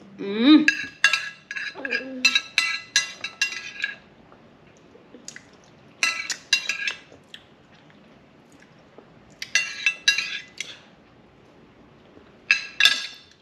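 Metal spoon clinking and scraping against a duck egg shell and a plate: runs of quick, light clinks that come in four bursts, the longest near the start.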